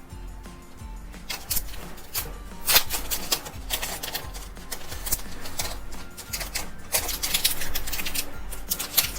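Paper and washi tape being handled at a desk: a busy run of crisp rustling and crackling clicks that grows denser about a second and a half in and is thickest toward the end.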